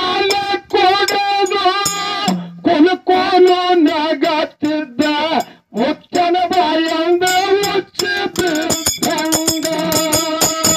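A man singing a Kannada dollina pada folk song through a microphone in phrases of long, wavering held notes. Sharp percussion strikes cut through the singing.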